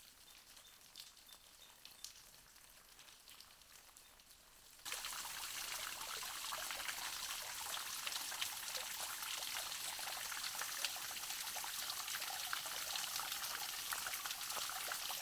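Faint outdoor quiet with a few soft ticks, then about five seconds in a sudden change to a steady, dense patter and rush of water, like rain or running water close to the microphone.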